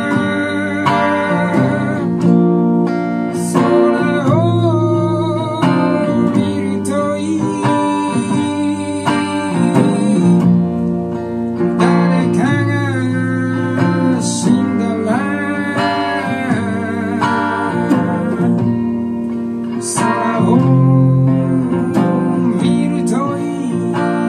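A man singing with held, wavering notes while accompanying himself on a strummed hollow-body electric guitar, as a live song performance.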